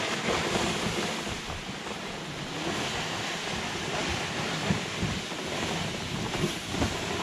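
Wind rushing and buffeting on the microphone, over the steady scraping hiss of plastic ice-fishing sleds dragged across snow.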